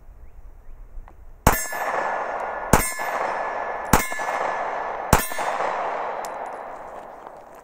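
Four shots from a Glock 43 9mm subcompact pistol, evenly spaced about a second and a quarter apart, each followed by a ringing tail that dies away over about a second.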